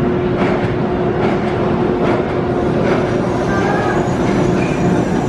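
Roller coaster train running along its track: a continuous loud rumble and clatter with a steady hum underneath.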